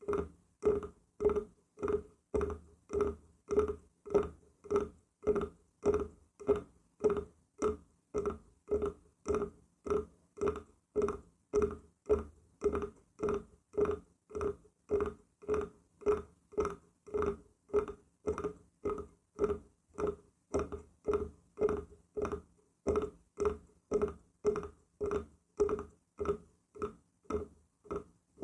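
Wood being knocked at an even pace, about two knocks a second, each with a short hollow ringing note. The knocking breaks off briefly right at the end.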